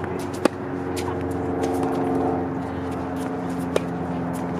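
Two sharp tennis ball strikes off racket strings, about three seconds apart, during a baseline rally on a hard court. Under them runs a steady motor hum, with faint scuffs of shoes on the court.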